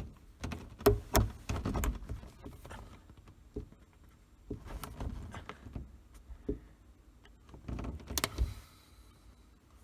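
Scattered clicks and knocks as the rear-glass latch and frame of a 1971 VW Karmann Ghia convertible top are pushed up and worked by hand. The latch will not stay closed and springs back down. The loudest knocks come about a second in and near eight seconds.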